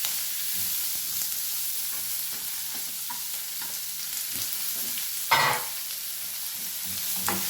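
Chopped onions frying in hot coconut oil in a kadai, sizzling steadily as they are stirred, with faint knocks of the stirring and one louder scrape about five seconds in.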